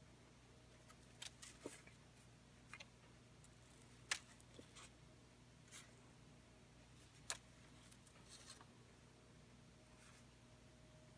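Near silence with faint, scattered ticks and light rustles of scrapbook cards and paper being handled, the sharpest tick about four seconds in and another about seven seconds in.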